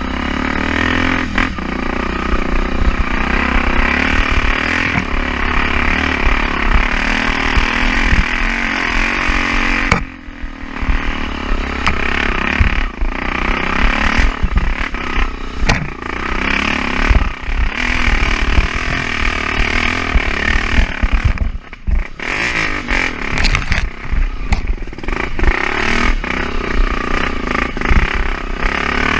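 Off-road motorcycle engine running hard under changing throttle, with clattering and scraping; the engine briefly eases off about ten seconds in and again about twenty-two seconds in.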